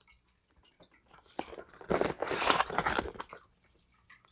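Cardboard box being handled and turned over in the hands: a crackling, scraping rustle of cardboard, loudest between about one and a half and three and a half seconds in.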